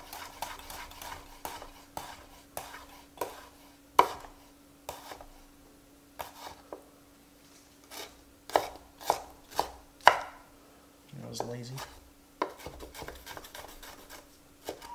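Chef's knife dicing Roma tomatoes on a wooden cutting board: irregular sharp knife strikes against the board, a few a second with short pauses.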